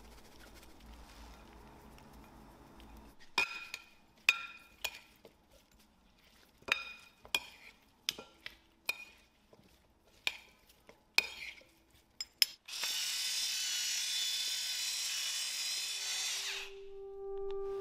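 Metal spoons clinking against a ceramic bowl while cucumber salad is tossed: about a dozen sharp, ringing clinks. Then about four seconds of steady grinding from a hand grinder held over the dish, which stops suddenly. Guitar music starts near the end.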